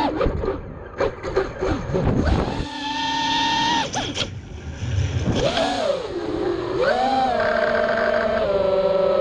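FPV quadcopter's electric motors and propellers whining as picked up by the onboard camera's microphone, the pitch rising and falling in steps with throttle changes. Rushing wind noise and crackle cover the whine during the first two or three seconds and again around four to five seconds in, as the quad rolls over.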